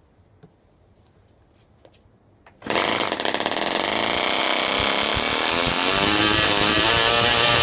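Frog 500 model aero engine, a spark-ignition engine running on glow-plug ignition. A few faint clicks come first, then about two and a half seconds in it catches. It runs a little unevenly for a moment, then settles to a loud, steady, high-speed run.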